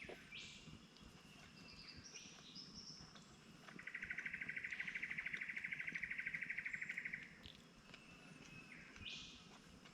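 Faint bush wildlife: a few short calls, and about four seconds in a fast, even trill that runs for about three and a half seconds before stopping.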